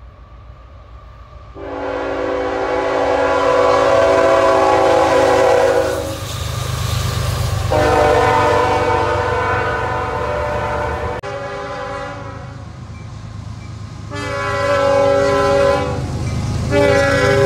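Locomotive air horn sounding a series of long blasts, each a chord of several tones, over the low rumble of a passing train.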